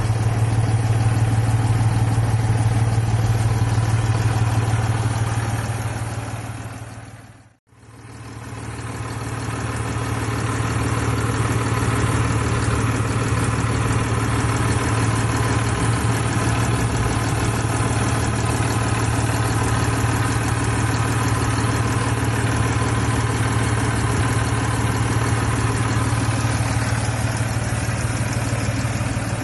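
Massey Ferguson 5610 tractor's four-cylinder diesel engine idling steadily. The sound fades out and back in about seven and a half seconds in.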